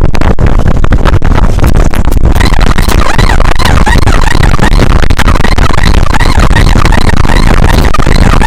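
Heavy wind buffeting and road noise from a vehicle riding at speed. From about two seconds in, a crowd of warbling high-pitched tones rises and falls over it.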